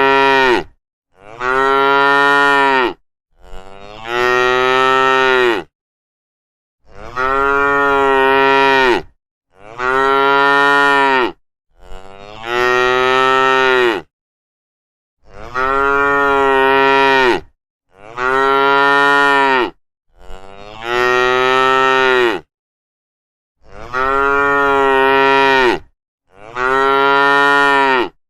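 Cattle mooing: a string of long, drawn-out moos of about two seconds each, one after another roughly every two and a half seconds, with short silences between.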